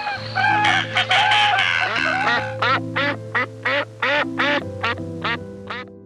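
Duck quacking: a busy burst of calls, then a quick run of about nine short quacks at roughly three a second, over steady background music.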